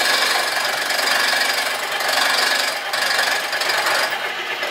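Vertical milling machine's end mill cutting into an aluminium transmission bell housing, a steady loud machining noise, milling out a pocket for starter clearance. The noise eases slightly about four seconds in.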